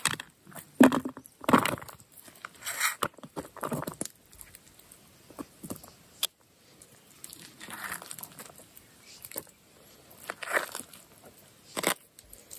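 A utensil scraping and clinking against a metal camp cook pot as food is scooped out into a bowl, in irregular short scrapes and taps with quiet gaps between them.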